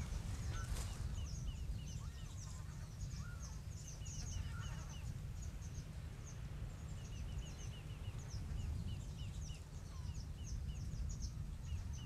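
Outdoor ambience: a steady low wind rumble, with a continual run of short high chirps and a few faint, lower bird calls.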